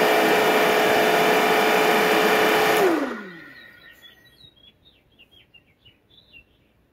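Vevor RR500 refrigerant recovery machine running in purge mode, a loud steady hum over a rushing noise. About three seconds in it shuts off and the hum slides down in pitch as the motor winds down. Faint bird chirps follow.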